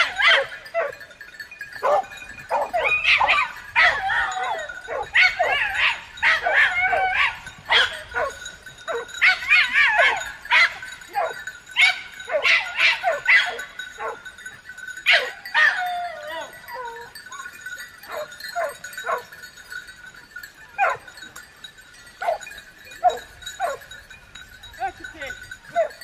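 A pack of hunting dogs barking and yelping excitedly, several at once. The calls come thick and overlapping through the first half, then thin out to scattered single yelps.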